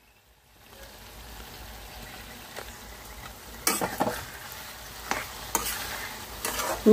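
Eggplant pieces sizzling in hot oil in a metal kadai as they soften, stirred with a metal spatula that scrapes and knocks against the pan several times in the second half.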